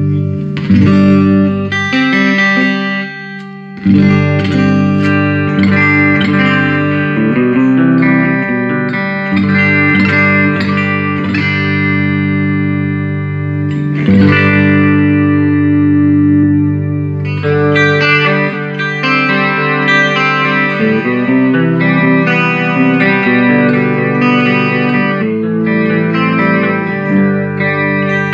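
Electric guitar played through a Fender Ultimate Chorus 2x12 combo amp, mostly ringing chords with struck attacks and sustained notes, on a fairly clean tone with an effect on it. There is a brief drop in level about three seconds in before the playing comes back in full.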